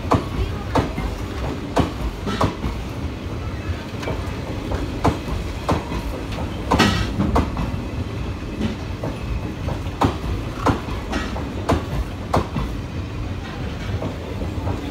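Passenger coaches rolling past at low speed, their wheels clacking over rail joints in pairs over a steady low rumble, with one louder clank about halfway through.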